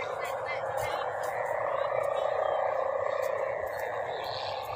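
Mica-ribbon kite hummers (sendaren) on many kites aloft, droning together in a steady, continuous hum.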